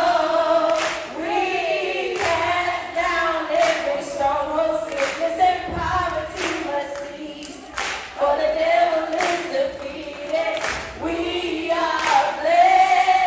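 A woman singing a gospel song solo into a microphone, unaccompanied, with long held notes that bend and slide in pitch.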